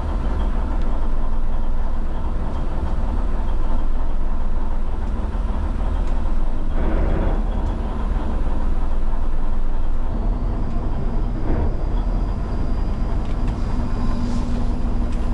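Fishing boat's engine running steadily, heard from inside the wheelhouse as a low rumble. About ten seconds in, a steady hum joins it.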